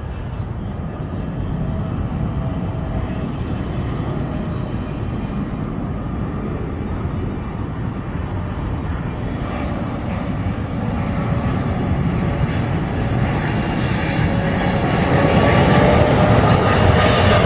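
Jet engines of a Korean Air Boeing 777 on final approach with its gear down. The steady jet noise, with a faint whine in it, grows steadily louder as the airliner nears and passes low overhead.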